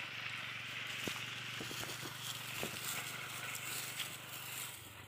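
Cattle grazing in dry grass: a few faint snaps and crackles of dry stalks over a steady high hiss and a low hum.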